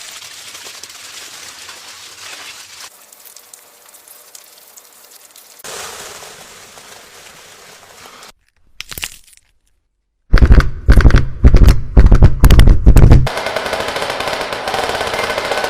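A run of sound effects: a steady hiss, then after a short silence a loud rapid volley of sharp bangs like machine-gun fire lasting about three seconds, followed by crackling noise.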